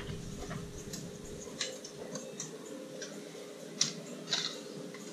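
Brother DCP-9020CDW colour multifunction printer running a mono copy job: a steady low mechanical hum with a few light clicks and ticks, the sharpest about four seconds in.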